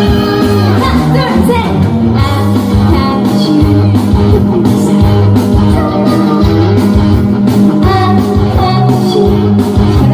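Upbeat trot medley music with a steady beat and guitar, with a voice singing over it.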